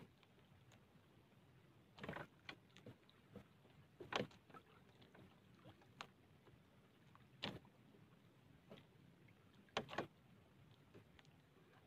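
Fishing handline being hauled and worked by hand from a small boat: mostly near silence, broken by four brief rustling sounds two to three seconds apart, the loudest about four seconds in.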